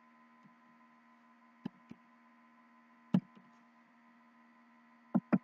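A few scattered keyboard key clicks as a short code is typed, then two quick clicks close together near the end. Under them runs a steady faint electrical hum with thin high whining tones.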